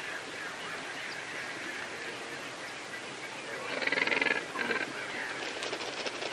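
Steady background hiss of an outdoor pond, broken about four seconds in by a brief, harsh, rapidly pulsed call from a water bird.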